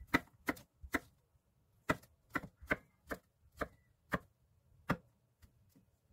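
Kitchen knife cutting stacked Korean zucchini (aehobak) slices into thin julienne strips on a wooden cutting board: about a dozen sharp knocks of the blade on the board, two or three a second, with a short pause about a second in and stopping about five seconds in.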